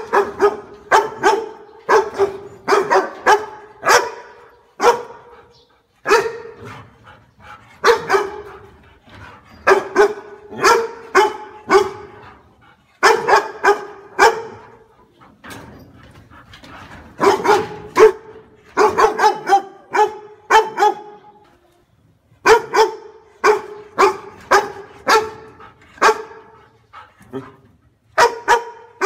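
A dog barking over and over: sharp barks in quick runs of several at a time, with short pauses between the runs.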